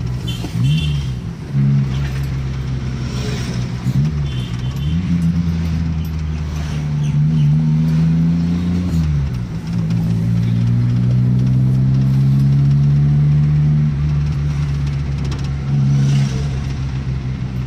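Small car's engine heard from inside the cabin while driving, through a newly fitted aftermarket HKS-replica exhaust. The engine note climbs several times and drops about halfway through, then holds steady for a few seconds before easing off near the end.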